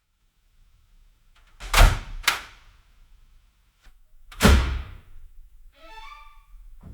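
Apartment door slamming in a hallway: two sharp bangs close together about two seconds in, then a heavier slam with an echoing tail a couple of seconds later. A short squeak with several pitches follows near the end.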